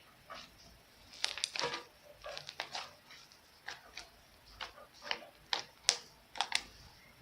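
Slime being kneaded and mixed by hand with foam clay worked into it: irregular sticky clicks and pops, some in quick clusters.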